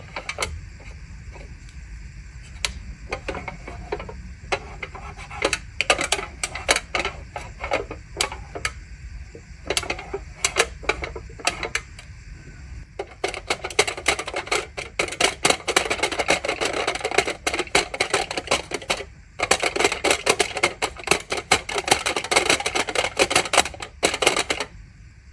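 Aluminium foil being handled and crinkled: scattered sharp crackles at first, then dense continuous crinkling in two long stretches with a brief pause between them.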